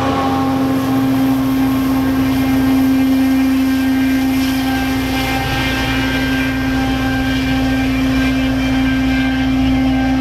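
MBTA commuter rail diesel locomotive and train pulling away, its engine running with a strong steady hum and a low rumble. Fainter high whining tones join in from about halfway through.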